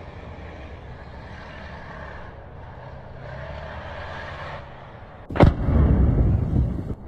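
A steady low engine rumble, then about five and a half seconds in a sharp blast and a loud explosion lasting about a second and a half: an anti-tank mine going off under a tank.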